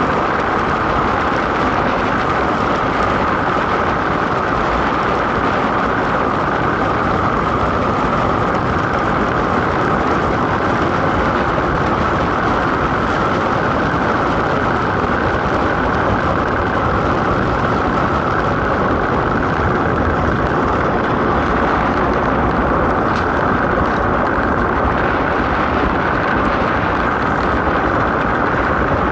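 DN ice boat sailing at speed over the ice, heard from on board: a loud, steady, unbroken rushing noise of the runners on the ice and the moving air.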